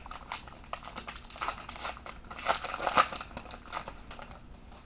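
A 2007 Topps Allen & Ginter card pack wrapper crinkling and tearing as it is opened: a run of irregular crackles that stops about four and a half seconds in.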